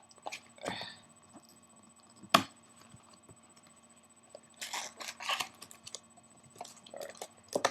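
Trading-card packaging being torn open and handled: scattered crinkles and rustles of wrapper and cardboard, with one sharp snap about two seconds in and a louder flurry of crinkling midway.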